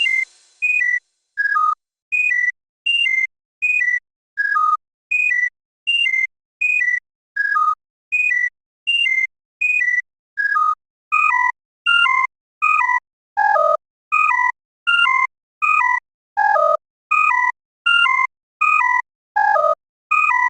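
The Twitter notification chirp played as synthesized MIDI notes and repeated over and over: short descending two-note blips, about one and a half a second, with silence between. From about halfway through, some blips slide lower in pitch.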